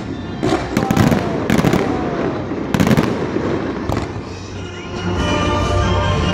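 Fireworks display: a rapid run of loud bangs from shells bursting, thinning out about four seconds in.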